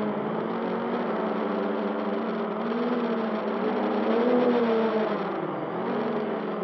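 Quadcopter's four T-Motor 2213 950kv brushless motors spinning 9.5-inch props, a whirring whine whose pitch rises and falls as the throttle changes through flips and turns, heard on the onboard camera's microphone.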